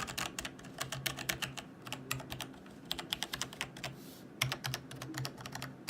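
Logitech G Pro TKL mechanical keyboard with Romer-G switches, its keys pressed in quick runs of clacking keystrokes, with a short pause about two-thirds of the way through.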